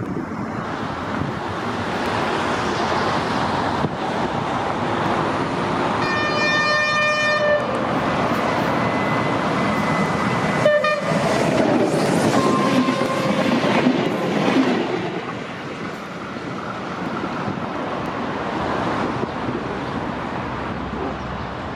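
Renfe UT-440 electric multiple unit running on the track, a steady rumble of wheels on rail. Its horn sounds once for about a second and a half, about six seconds in.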